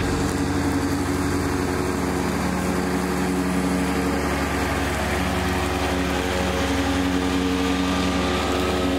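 Kubota B2601 compact tractor's three-cylinder diesel engine running steadily under load while mowing with its mid-mount rotary mower deck.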